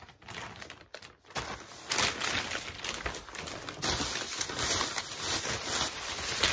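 Plastic shopping bags and poly mailer packages rustling and crinkling as they are handled and piled up, louder from about a second and a half in.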